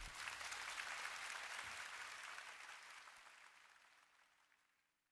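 Audience applause as a piece of music ends, fading out steadily over the next few seconds.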